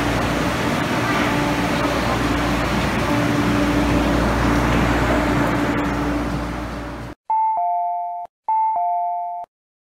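Mid-life refurbished Metro-Cammell electric train of the MTR East Rail Line, a steady rumble with a low hum and a faint on-off whine, swelling a little and then fading as it pulls away. The sound cuts off suddenly and is followed by a two-note high-low chime played twice, each about a second long.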